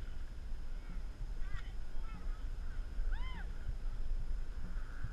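Steady low wind rumble on the boat's camera microphone, with no paddle strokes. Over it come a few short calls that rise and fall in pitch, the clearest about three seconds in.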